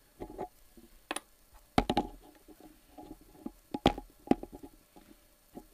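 Handling noise from a camera being repositioned by hand: a series of irregular clicks and knocks, the loudest about two and four seconds in, some with a short ring.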